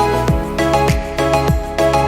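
Background music with a steady beat of deep kick drums, about one every half second or so, under a melody.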